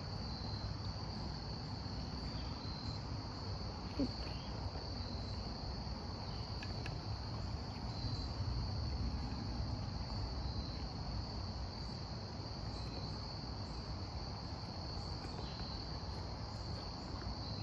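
Outdoor insect chorus: a steady high-pitched trill that never stops, over a low background rumble.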